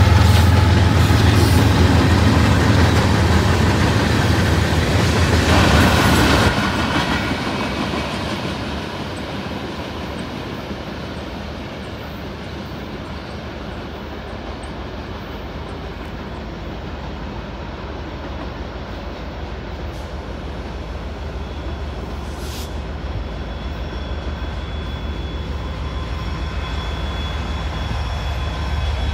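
Norfolk Southern diesel locomotives passing close by with engines running and wheels rolling on the rails; the loud rumble drops away after about six seconds. A quieter train rumble follows and grows toward the end as another locomotive approaches.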